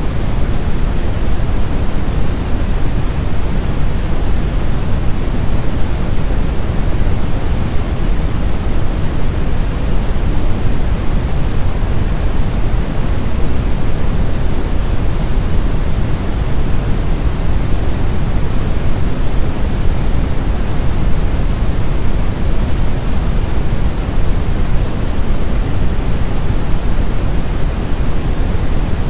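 Steady, loud brown noise: a smooth, deep rumbling hiss with most of its weight in the bass, unchanging throughout.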